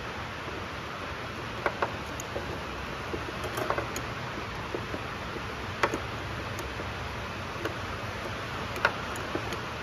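Sharp metallic clicks of a small wrench on the carburetor float-bowl bolt of a Honda Harmony 215 mower, about half a dozen spread irregularly over a steady hiss. The bolt is being tightened because it had worked loose and let fuel leak out of the bowl.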